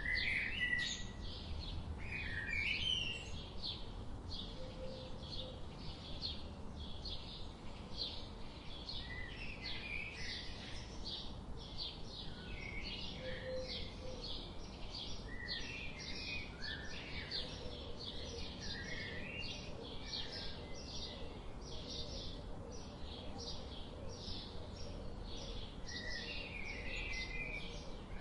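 Songbirds singing: short high chirps repeating about twice a second, with scattered warbling phrases from other birds over a low steady background rumble.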